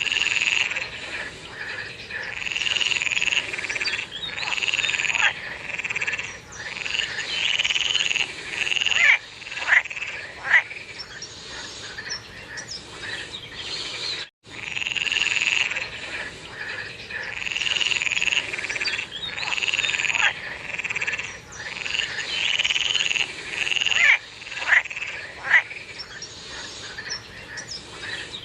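A chorus of frogs calling: overlapping croaking calls about a second long, repeated over and over, with a few short sharp notes mixed in. The sound cuts out briefly about halfway through.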